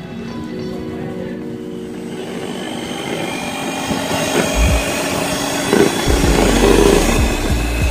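Electric hand mixer running, its beaters whipping fresh cream and cocoa powder in a plastic bowl: a steady motor whine with a whirring that gets louder over the seconds as the cream thickens.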